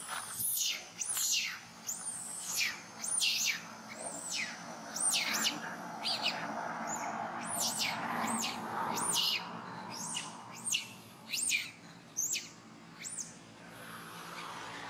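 Long-tailed macaque screaming: a long series of shrill, high-pitched calls that each rise and fall in pitch, about one or two a second, stopping shortly before the end.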